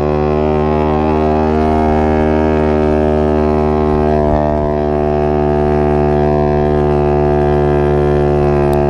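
Mini dirt bike engine running steadily while the bike is ridden along at an even speed, a continuous drone holding one pitch.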